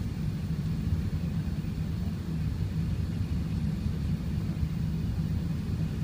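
Steady low cabin rumble of an Airbus A380 in flight on final approach: engine and airflow noise heard from inside the aircraft.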